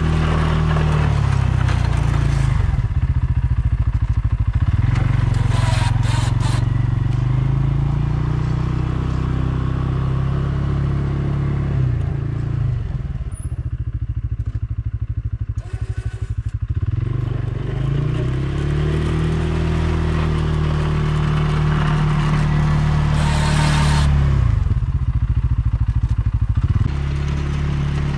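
ATV engine pushing a snow plow blade, rising and falling in pitch several times as the machine works back and forth. It drops to a lower, quieter running speed about halfway through, then picks up again. A scraping, clattering noise from the blade and chassis runs over the engine.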